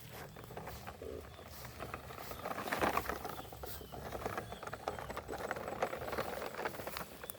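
Plastic toy vehicles being handled and pushed along, giving scattered light clicks and rustles, busiest about three seconds in.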